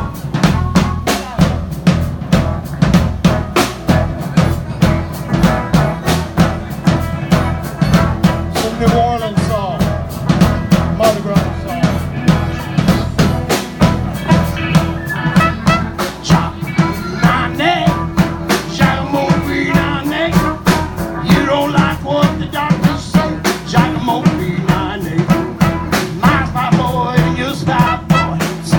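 Live blues band playing, with a steady drum-kit beat under harmonica played into a microphone, saxophone, trumpet, electric guitar and keyboard.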